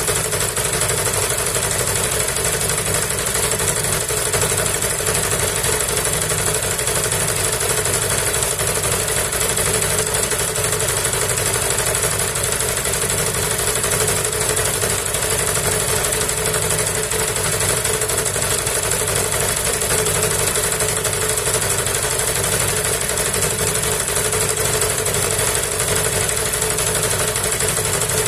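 Small petrol engine of a homemade generator, driving an induction motor used as an alternator, running at a steady speed under constant electrical load (a 1 kW heater and a 100 W lamp). It is an even drone with a steady whine, with no change in speed.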